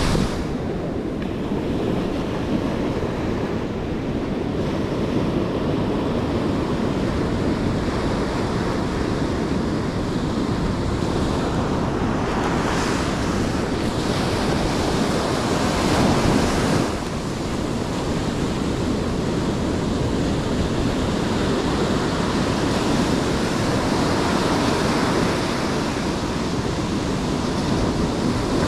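Ocean surf breaking on the shore, with wind buffeting the microphone. The wash surges louder about twelve seconds in and again about sixteen seconds in, then drops back.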